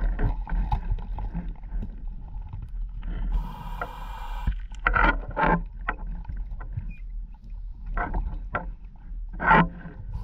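Underwater sound of a scuba diver breathing: a hissing rush of exhaled bubbles about three seconds in, then several short gurgling bubble bursts, over a steady low hum.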